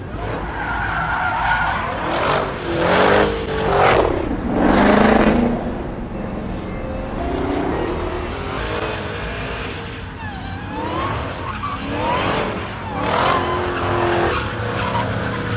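Dodge SRT Hellcat's supercharged 6.2-litre V8 revving hard while the rear tyres spin and squeal in a smoky burnout, doing donuts. The engine note rises and falls in surges, loudest in the first five seconds and again near the end.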